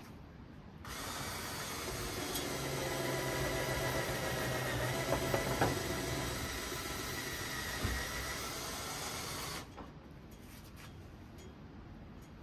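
An electric power tool runs steadily for about nine seconds, starting abruptly about a second in and cutting off abruptly near the end, with a couple of sharp knocks partway through.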